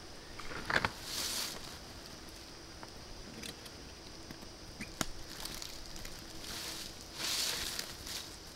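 Handling of a backpack and camping gear on dry leaf litter: rustling and brief swishes with a few sharp clicks and knocks, the loudest click about a second in.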